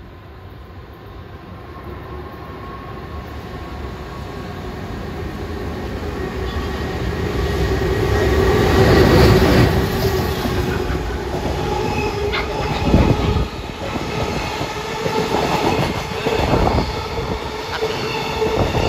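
JR Freight EH500 electric locomotive hauling a container freight train past at speed. The rumble grows steadily as the train approaches and is loudest as the locomotive goes by about nine seconds in. After that, the container wagons roll past with clattering wheels and irregular knocks.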